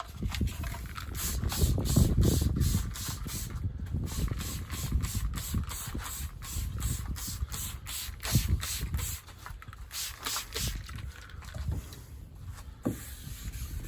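Wet-sanding car paint by hand with 2000-grit sandpaper: repeated back-and-forth rubbing strokes, about three a second, over a low rumble, pausing briefly twice.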